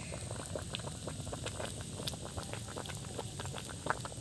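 Coconut-milk curry with fish and long beans bubbling at a rolling boil in a wide pan, a steady run of small pops and blips with one sharper pop near the end.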